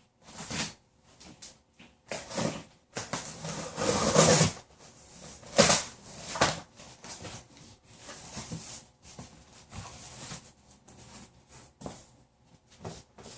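Cardboard shipping box being opened and handled by hand: irregular rustling and scraping of cardboard and packing, loudest about four and six seconds in.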